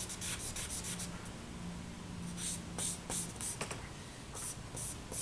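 Charcoal scratching across drawing paper in short, quick strokes, coming in groups: a run of strokes at the start, more about halfway through, and a few near the end.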